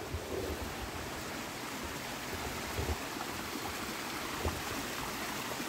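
A stream flowing steadily, a continuous rush of water, with a few soft low thumps.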